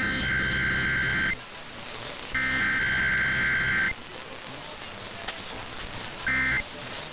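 EAS/SAME digital header tones, the shrill two-pitch data screech of an Emergency Alert System test. Two header bursts of about a second and a half each play a second apart. After a pause, a short burst near the end begins the end-of-message code.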